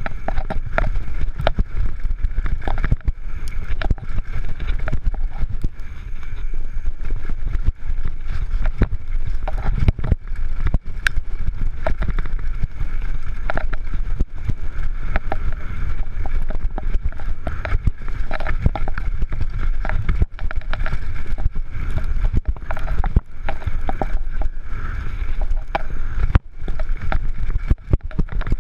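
Canyon Torque FRX downhill mountain bike descending a rough dirt trail at speed: heavy wind rumble on the camera's microphone, tyres on dirt and the bike clattering with many sharp knocks over bumps.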